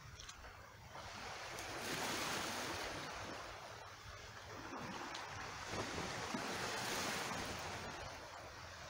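Small waves washing in over a rocky, cobbled shore, the wash swelling twice, about two seconds in and again about seven seconds in.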